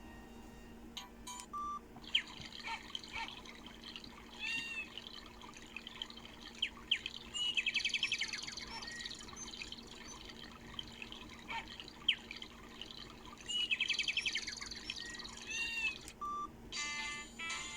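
Birdsong ringtone played through a Samsung E530 mobile phone's loudspeaker: scattered chirps and whistled calls, with a fast trill twice, about six seconds apart.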